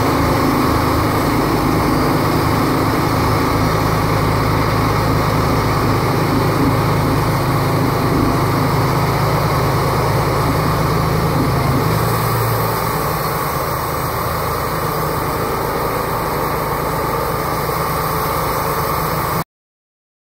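Wood-Mizer LT35 portable band sawmill running steadily, its engine driving the band blade through a log. About twelve seconds in the engine note shifts and the sound drops a little. Near the end it cuts off suddenly.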